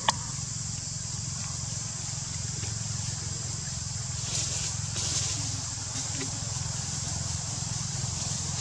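Steady outdoor background: a high, even drone that swells briefly twice around the middle, over a low steady hum, with one sharp click at the start.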